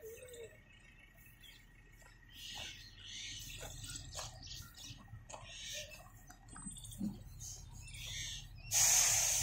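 Birds chirping over the faint low rumble of a SANY truck crane's diesel engine as the crane moves slowly. Near the end a loud hiss cuts in suddenly and then fades.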